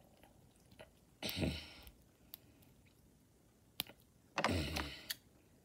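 Close-up handling noise from small plastic toy parts and packaging being worked loose: two short rustling bursts with a few sharp clicks between them.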